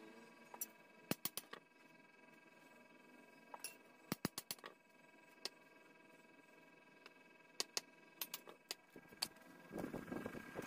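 Scattered sharp clicks and light ticks, singly and in quick clusters, over a quiet background with a faint steady hum. Near the end a low rushing noise starts up.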